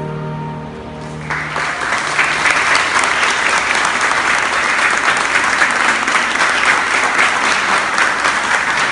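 The closing held notes of the music die away, and about a second in an audience breaks into loud, sustained applause.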